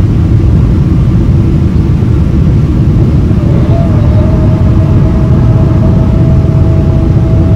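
Boeing 777-300 cabin noise heard from a window seat over the wing: a loud, steady low rumble of engines and airflow. A steady whine joins about four seconds in and holds.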